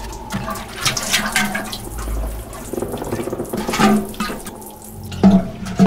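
Water pouring and splashing onto wooden floorboards in an irregular stream, with two louder thuds near the end.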